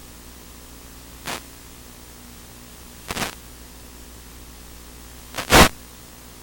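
Steady static hiss with a faint hum, as from the audio channel of an analog FPV video receiver, broken by three short, loud bursts of static, the last and loudest about five seconds in.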